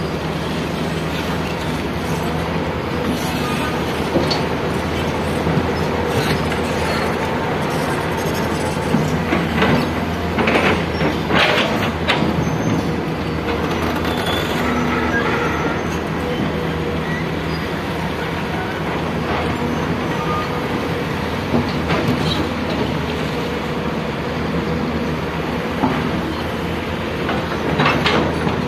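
Excavator's diesel engine running steadily, with a few short metallic squeals from the machine about ten seconds in and again near the end.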